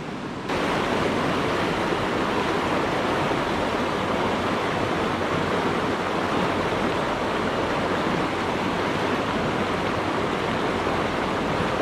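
A rocky mountain creek rushing steadily through shallow riffles, heard close to the water. The rush comes in abruptly about half a second in.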